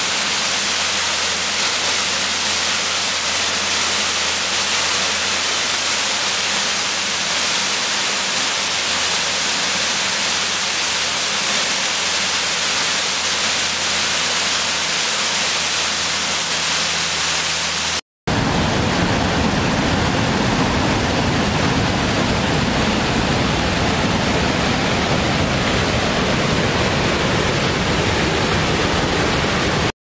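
Waterfall rushing steadily, an even hissing wash of falling water. About two-thirds of the way through it cuts out for an instant and is replaced by a fuller, deeper rush of water from a bigger falls.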